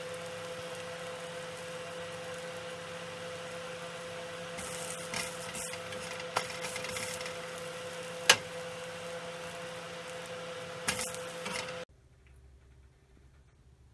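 Egg-and-bell-pepper patty shallow-frying in oil in a nonstick frying pan: a steady sizzle over a faint hum, with a spatula tapping and scraping against the pan a few times, sharpest about eight seconds in. The sizzle cuts off suddenly about twelve seconds in.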